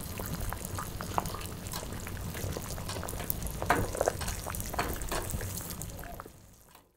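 Oden broth boiling in a pot on a wood stove: a steady bubbling with many small pops, fading out near the end.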